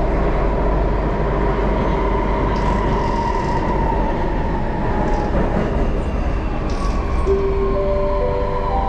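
Singapore MRT train running, heard inside the car: a steady rumble of wheels and motors. Near the end, a few steady whining tones at stepped pitches come in as the train brakes into a station.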